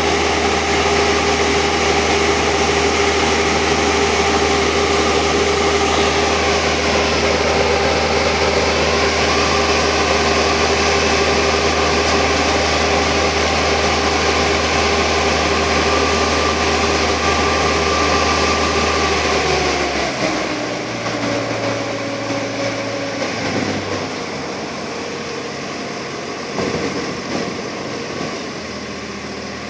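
Bobcat T40180 telehandler's diesel engine running at raised speed with a steady whine while the hydraulics work the telescopic boom to lift a pallet of blocks. About two-thirds of the way through, the pitch slides down and the engine drops back toward idle, running more quietly and unevenly after that.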